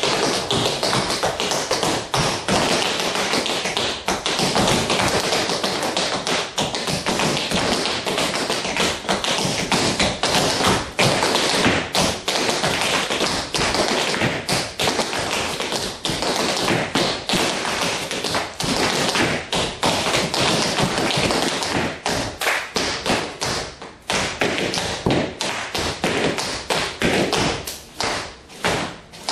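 Tap shoes' metal taps striking a hard floor in fast, continuous tap-dance footwork, thinning out into separate, spaced strikes over the last several seconds.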